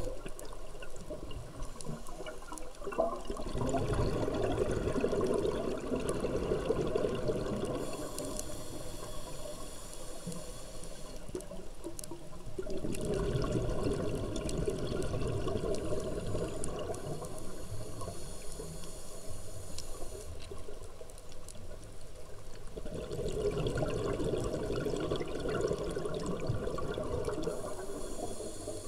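Scuba diver breathing through an open-circuit regulator underwater: three long exhalations of rushing, gurgling bubbles about ten seconds apart, with a thinner hiss between them.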